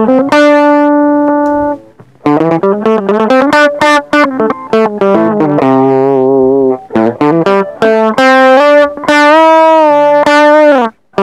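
Electric guitar lead played through a TC Electronic HyperGravity mini compressor pedal: a long held note, then quick runs of notes and sustained notes that bend and waver in pitch. The pedal is bypassed at first and switched on partway through, evening out the note volume and sharpening the note attacks.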